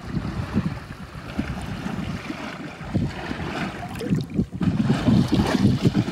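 Wind buffeting the microphone outdoors: an uneven low rumble in gusts, growing louder about four and a half seconds in.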